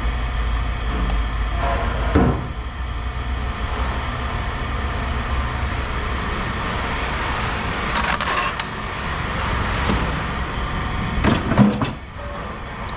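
Steady low engine rumble, with several knocks and clanks of handled metal: one about two seconds in and the loudest near the end.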